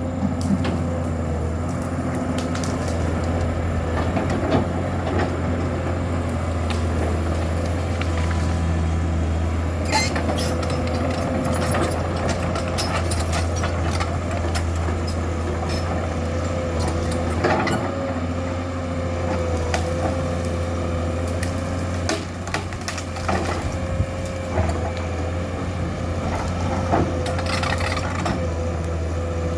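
Komatsu PC200-7 excavator's six-cylinder diesel engine running steadily under work, with a constant whine over it and scattered cracks and knocks as the machine works.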